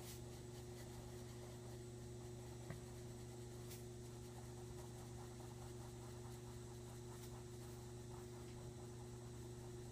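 Faint scratching of a blue coloured pencil scribbling small circles on paper, over a steady low hum.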